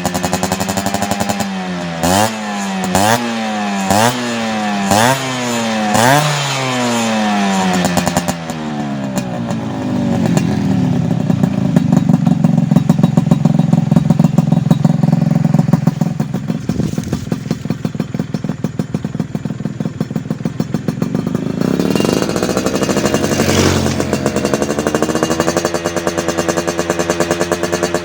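Yamaha F1Z/F1ZR two-stroke motorcycle engine running through an HTX racing exhaust. It idles, is blipped five times in quick succession, then is revved up and held high for several seconds before dropping back to idle, with one more short rev later.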